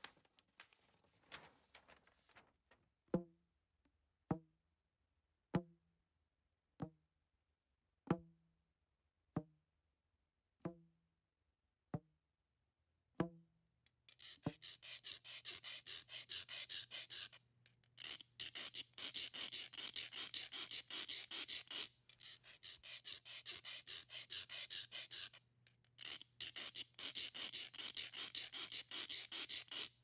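A hollow knock repeated nine times, evenly about a second and a quarter apart, each with a short low ring. Then a continuous scratchy rasping, rubbing to and fro with a few brief pauses, over a faint low hum.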